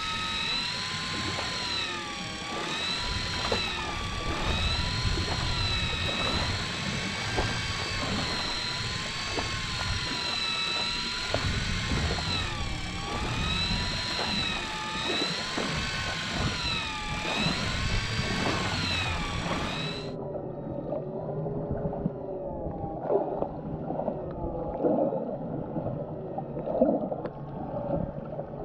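Electric deep-drop fishing reel motor whining as it works the line, its pitch rising and falling smoothly every couple of seconds. After about 20 seconds the sound changes abruptly to a duller gurgling, watery sound with lower wavering tones.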